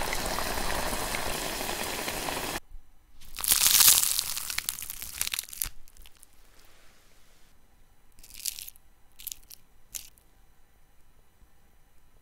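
A rice-flour-battered banana sizzling in deep-frying oil, cut off about two and a half seconds in. Then a crisp fried banana fritter is torn apart by hand with a loud crackling crunch lasting a couple of seconds, followed by about four short crunches.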